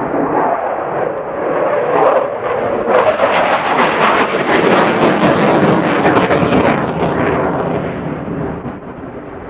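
Saab Gripen C fighter's Volvo RM12 turbofan jet engine going by in a display pass. The roar swells and is loudest through the middle with a rough crackle, then fades as the jet moves away.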